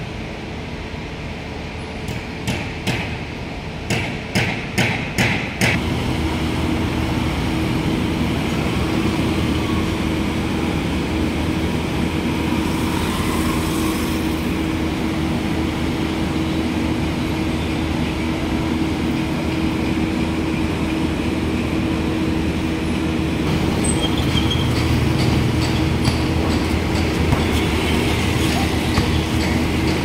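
A scooter or motorcycle engine running steadily as a low, even hum. Before it, a quick run of about eight sharp knocks, roughly two a second and getting louder.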